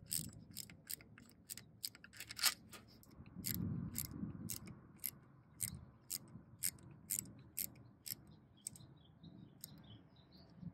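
Quarter-inch ratchet clicking in short, sharp ticks, roughly two a second, as it turns the pinion-shaft lock screw in a Dana 35 differential carrier.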